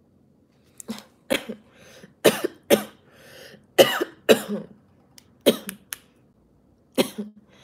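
A woman's coughing fit: about nine sharp coughs in short groups of two or three, starting just under a second in.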